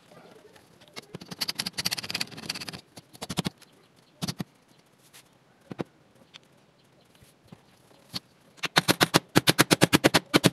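Hand work on a refrigerator cabinet's door and glass panel: scattered knocks and clicks, a scratchy rubbing stretch, then near the end a fast even run of about a dozen sharp clicks, roughly six a second.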